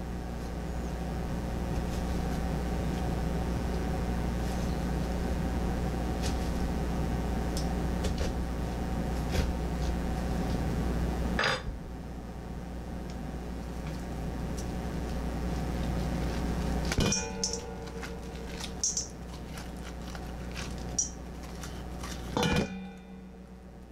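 A steady mechanical hum under hand-scraping of pumpkin pulp, broken by a few sharp knocks and light metallic clinks. Near the end comes a knock as a pumpkin half is emptied against a stainless steel bowl.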